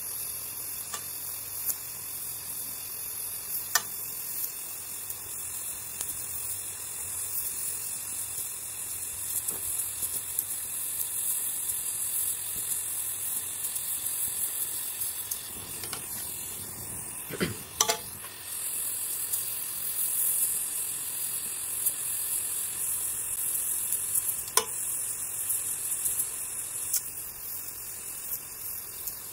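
LPG gas-torch flame hissing steadily as it melts aluminum filler rod into a weld bead, with a few sharp clicks now and then.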